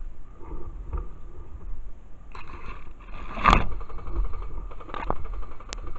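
Rumbling movement and handling noise on a body-worn camera, with a loud scrape a little past halfway and a couple of sharp clicks near the end.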